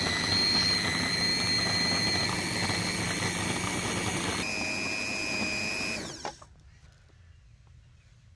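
Electric food processor running, its blades grinding bread into crumbs: a steady motor whine that steps up in pitch about four and a half seconds in, then winds down and stops about six seconds in.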